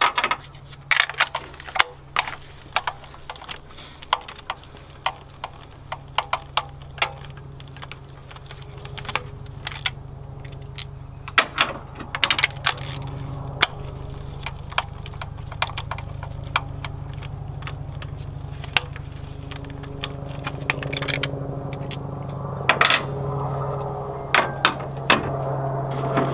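Ratchet clicking and a spark plug socket and extension knocking against metal as spark plugs are loosened and drawn out of the plug tubes of a Honda B16A2 engine: irregular sharp clicks and taps throughout, over a steady low hum.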